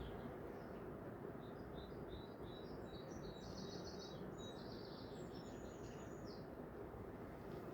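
Small birds chirping in quick high series, busiest in the middle, over a steady low background hiss.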